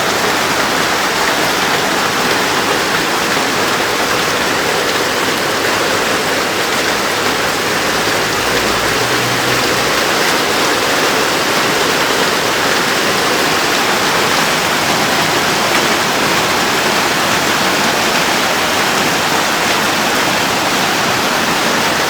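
Torrential rain pouring down in a steady, loud hiss, with a brief low rumble about halfway through.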